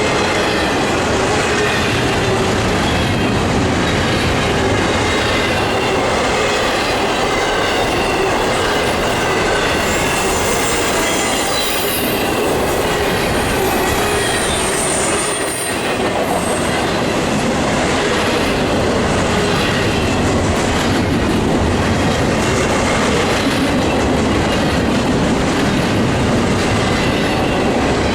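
Cars of a freight intermodal train rolling past at track speed, a continuous loud rumble and clatter of steel wheels on rail. Some thin, high wheel squeal rises briefly around the middle.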